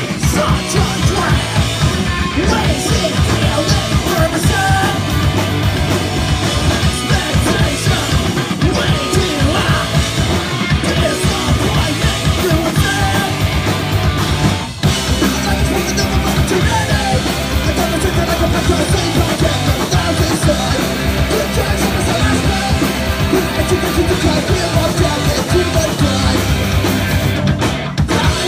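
Punk band playing live, with guitar, drums and vocals, recorded on a phone's microphone. The band cuts out for a split second about halfway through and comes straight back in.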